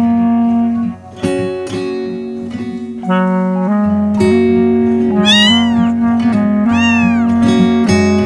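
A kitten meowing twice over background music, about five and seven seconds in; each meow rises and then falls in pitch.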